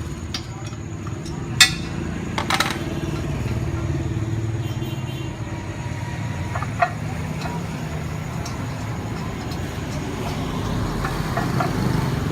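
A steady low motor-like rumble, swelling slightly near the end, with a few sharp metallic clinks about one and a half and two and a half seconds in and again near seven seconds.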